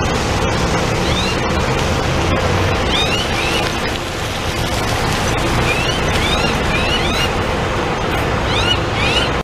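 Volvo city bus with a Volgren Optimus body driving past close by on a wet road: steady diesel engine running with tyre hiss. Short, high rising chirps recur throughout.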